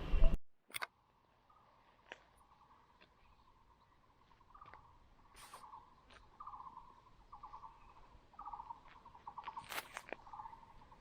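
A wild animal calling: a repeated call near one pitch, each note a rapid pulsing trill, growing louder through the second half, with a few sharp clicks in between.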